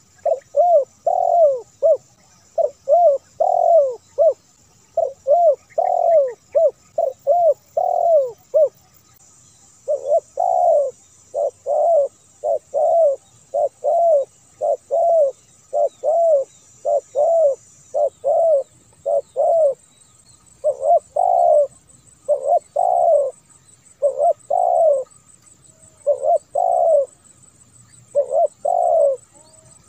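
Spotted dove cooing over and over, in short phrases of several low, rounded coos separated by brief pauses.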